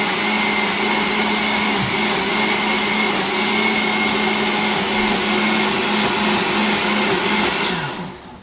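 Blender running steadily as it blends a smoothie, then switched off near the end, its motor pitch falling as it winds down.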